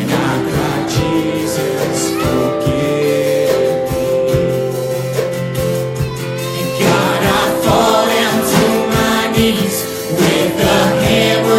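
Congregation and worship team singing a gospel hymn with instrumental accompaniment; the singing grows fuller about seven seconds in.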